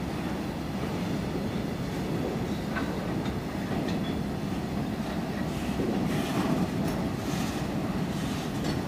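Indian Railways BCNA covered freight wagons rolling past on the track: a steady low rumble of steel wheels on rail.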